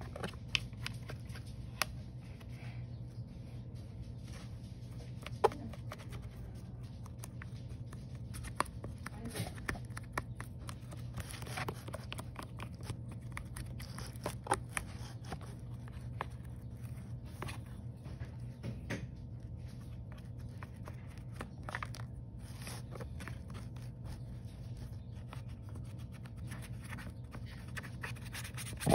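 Paintbrush dabbing and scraping against a textured painted surface: scattered light taps and scrapes over a steady low hum, with one loud knock right at the end.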